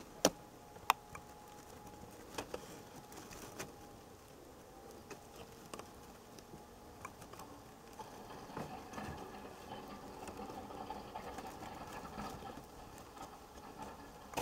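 Ford F-250 pickup with a snow plow, its engine running faint and distant, a little louder in the second half. A few sharp clicks come near the start, the two loudest in the first second.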